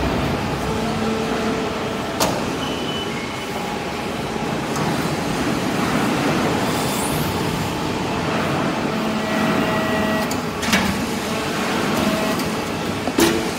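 Hydraulic metal-chip briquetting press running: a steady mechanical noise from its hydraulic power unit, broken by three sharp knocks, one about two seconds in, one near eleven seconds and one near the end.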